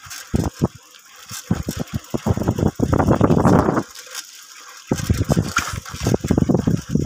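Uneven low rumbling and buffeting from a moving vehicle, heard through the phone microphone in gusts, with a lull of about a second partway through.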